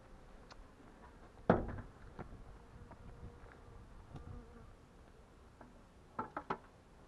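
Honeybees buzzing faintly around an opened hive. A loud knock comes about a second and a half in, and three quick knocks near the end, from the hive being handled.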